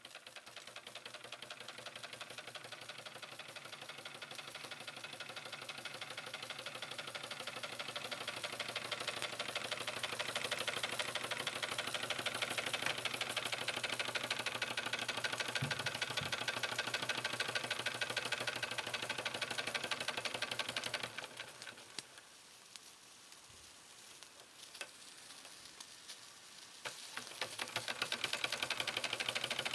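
1904 Märklin compound live-steam toy traction engine running: a rapid, even ticking beat from its small cylinders and rocking valve gear, with a hiss of steam. It builds up over the first ten seconds, falls away sharply about two-thirds through, and picks up again near the end.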